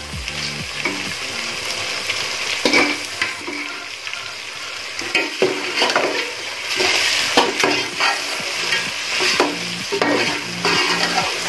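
Chicken pieces frying in hot oil in a metal pot, sizzling steadily, while a steel spoon stirs them and scrapes and knocks against the pot many times.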